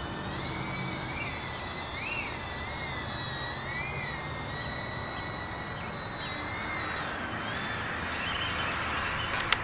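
Small ducted quadcopter (iFlight CineBee 75 HD cinewhoop) in flight, its tiny brushless motors and Gemfan props whining, the pitch rising and falling with throttle. Near the end a sharp knock as it crashes into a tree and falls, and the whine dies away.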